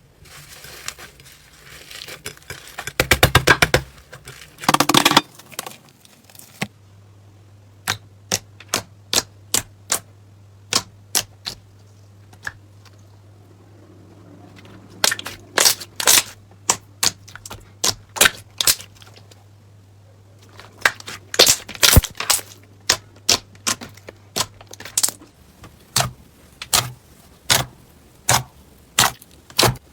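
Slime being squeezed and poked by hand, giving a long run of sharp pops and clicks, with two dense bursts of crackling a few seconds in.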